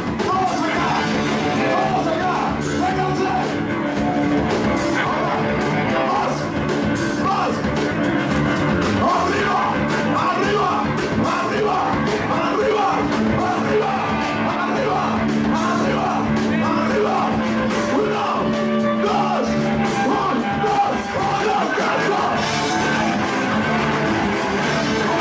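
Live ska-punk band playing loud and steady: electric guitars, drums and shouted singing.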